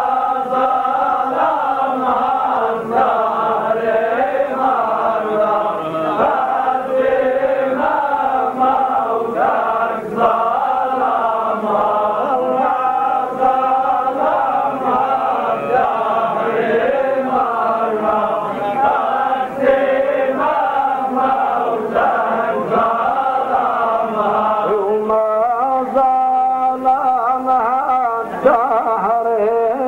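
Men's voices chanting a Lebanese zajal verse together in a continuous, wavering melody without a break.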